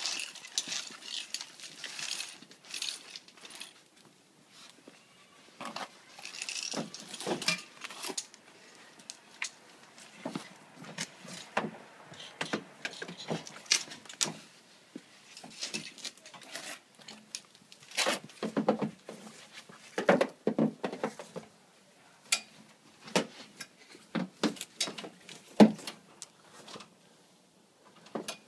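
NETGEAR GIRARE GN15 snow chain being handled and fitted around a car tyre: irregular clinks, rattles and clicks of its links and fittings, some sharper than others.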